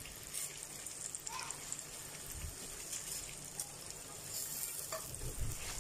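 Uncooked rice being tipped by hand into hot butter and oil in a pot, with a steady sizzle and hiss of the fat and grains. A couple of soft knocks about halfway and near the end.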